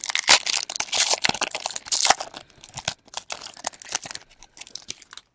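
Foil wrapper of a baseball card pack being torn open and crinkled by hand: dense crackling for the first two seconds or so, then lighter, scattered crinkles.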